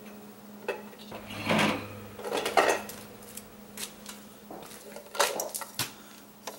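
Clinks and knocks of smoked hard-boiled eggs being taken off a smoker's metal rack into a stainless steel pot: a handful of separate short clatters.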